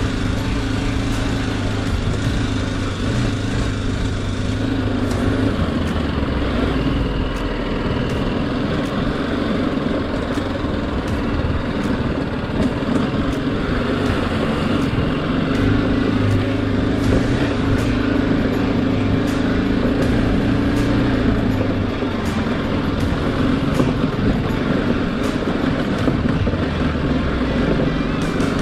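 BMW G310GS single-cylinder engine pulling the motorcycle along a rough dirt track, its pitch shifting up and down with the throttle, over steady road and wind noise with scattered ticks.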